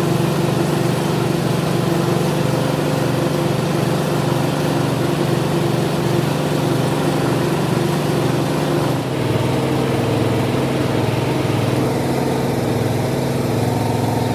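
Workshop machinery running steadily, an engine-like hum with a regular low pulsing. The sound changes abruptly about nine seconds in, then runs on steadily.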